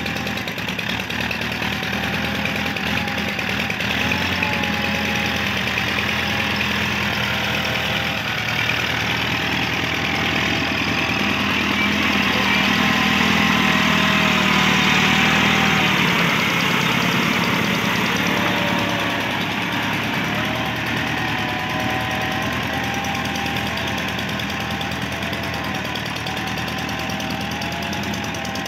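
Massey Ferguson MF 275 tractor's diesel engine running steadily under load while dragging a levelling blade through flooded paddy mud. It grows louder through the middle as the tractor passes close, then eases off.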